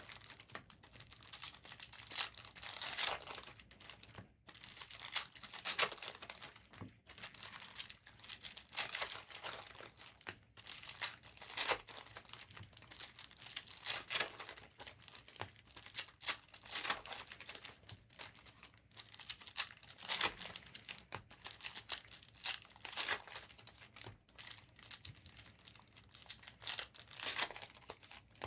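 Foil trading-card pack wrappers crinkling and tearing as packs are ripped open, one after another, in an irregular run of rustling strokes.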